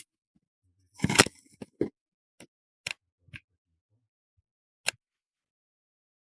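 Sharp clicks and knocks of small parts being handled at a workbench: a quick cluster about a second in, then single clicks spaced roughly half a second apart, with the last one near five seconds.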